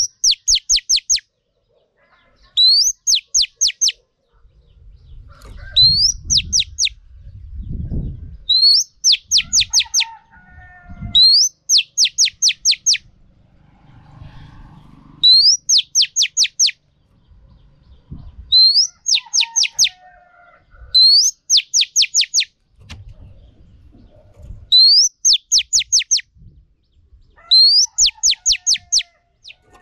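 Female oriental magpie-robin calling: a rising note followed by a quick run of about five sharp, high notes, the same phrase repeated roughly every three seconds, with softer lower warbling notes between phrases.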